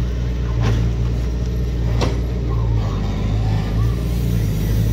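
A steady low engine hum, like an idling motor vehicle, with a couple of sharp clicks.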